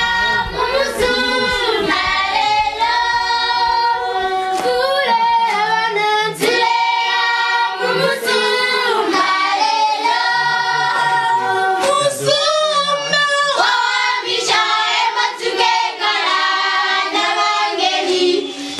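A choir singing, with children's voices among them.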